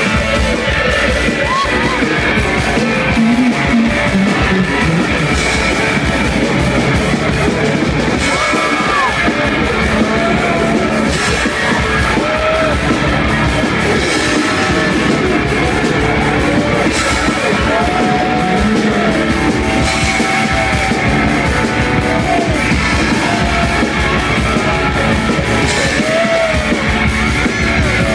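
Live noise-rock band playing loud and steady: distorted electric guitars with bending, sliding notes over bass and drums with regular cymbal crashes, recorded from the crowd.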